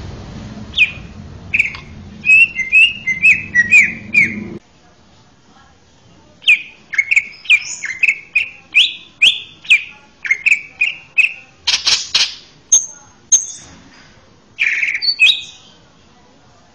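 Male cucak ijo (green leafbird) singing: rapid phrases of sharp, loud chirps that fall in pitch, with a brief harsh rasping note about halfway through. A low hum under the song cuts off abruptly about four and a half seconds in.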